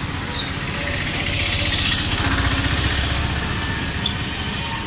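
Road traffic: a motor vehicle passing close by, swelling to its loudest about two seconds in and then fading, over a low rumble.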